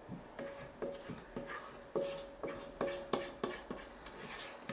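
Silicone spatula scraping batter out of a stainless steel mixing bowl in repeated quick strokes, about two or three a second, the metal bowl giving a short ring with each stroke.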